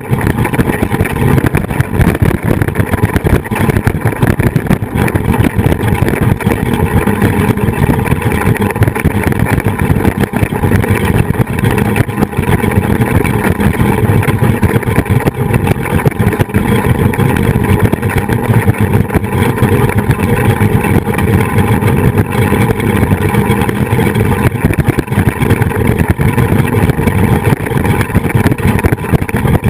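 Loud, continuous wind rushing and buffeting over the microphone of a camera fixed to a flying-fox zipline trolley running at speed.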